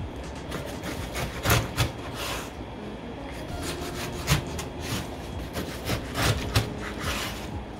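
Kitchen knife cutting through a head of napa cabbage kimchi and knocking on the cutting board: a run of rasping slicing strokes with sharp knocks at irregular intervals.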